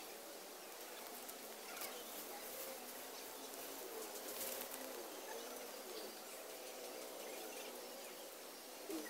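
Faint outdoor yard ambience with birds calling in the background.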